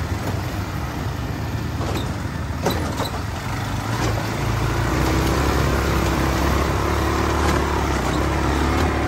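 ATV engines running as quad bikes drive along a muddy dirt trail, getting louder about halfway through, with a few short knocks.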